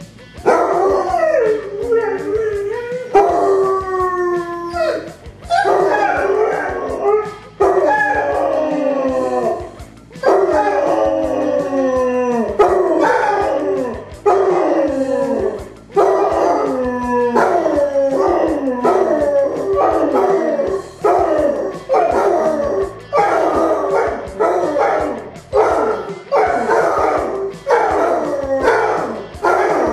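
Basset hounds howling together, their voices overlapping in long, drawn-out howls that slide down in pitch. From about halfway the howls turn shorter and come roughly once a second.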